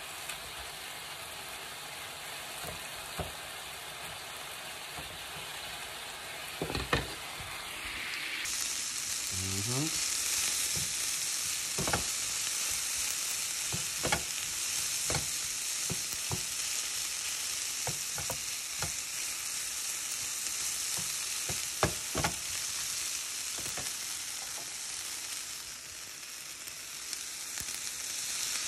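Diced chicken breast sizzling in a nonstick frying pan, the sizzle growing louder and brighter about a third of the way in. A few sharp taps sound on the pan as it is stirred.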